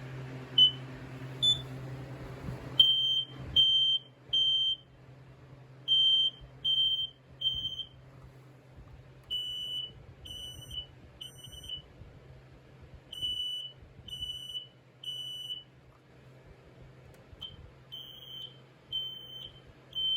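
Smoke alarm sounding its evacuation signal: loud high-pitched beeps in groups of three, each group followed by a pause, repeating about five times. A couple of short chirps come before the pattern starts.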